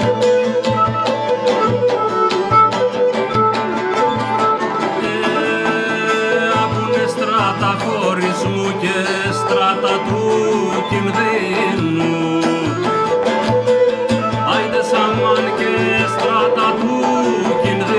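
Cretan folk music played live: a Cretan lyra bowed, a laouto (Cretan lute) plucked, and a hand-played frame drum keeping an even beat. A man sings over the instruments from about the middle on.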